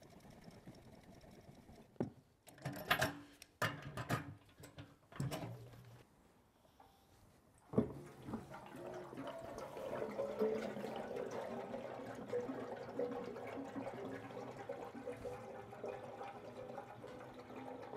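A few clunks and knocks of fuel cans being handled, then a sharp knock about eight seconds in. After that comes a steady pour of petrol mixed with two-stroke oil, running on for about ten seconds as the container fills.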